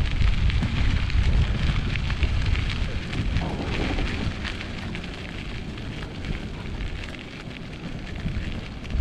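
Strong wind blowing across the microphone: a low rumble that eases off about three seconds in and comes back near the end, over a hiss dotted with small crackles.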